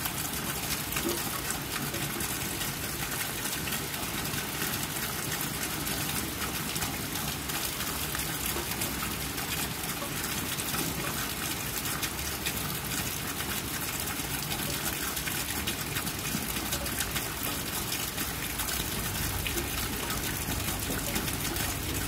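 Steady rain falling on wet concrete and a shallow puddle: an even hiss made up of many small drop impacts, unchanging throughout.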